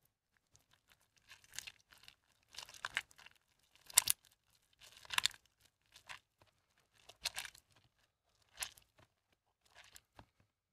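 Hands squeezing and crumbling soaked, mushy bar soap over a tub of soapy water: wet squelching crunches as the soft soap breaks into flakes. About eight bursts come roughly a second apart, the loudest about four seconds in.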